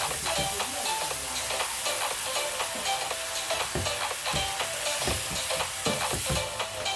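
Wet lentils sizzling in hot oil in a nonstick wok, with a steady hiss, while a spatula stirs them with irregular scrapes and knocks against the pan.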